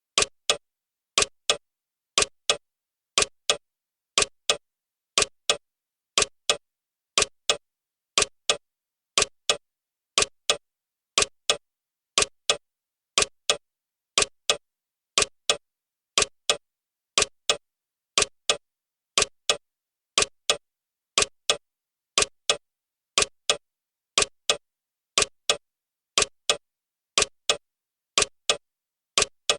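Clock ticking sound effect for a countdown timer: sharp, even ticks at a steady pace of about two a second.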